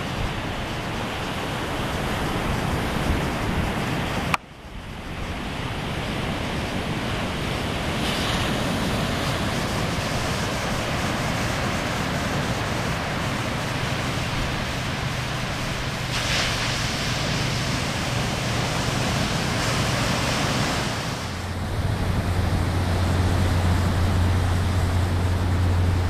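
Ocean surf breaking and washing up a sandy beach, a steady wash of noise, with wind on the microphone. The sound drops out suddenly about four seconds in and picks up again. A low wind rumble comes in over the last few seconds.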